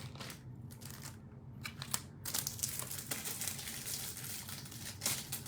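Plastic wrapping crinkling as it is handled, with scattered sharp crackles and clicks, over a steady low hum.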